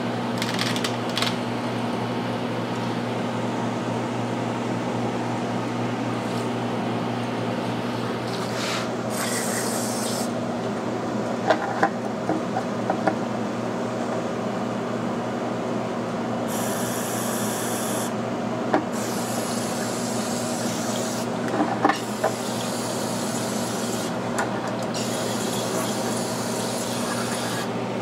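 Aerosol carburetor cleaner sprayed through a straw onto a small-engine carburetor in several separate bursts of hiss, the longest near the end, with a few sharp clicks and knocks as the carburetor is handled on a plastic lid. A steady low hum runs underneath.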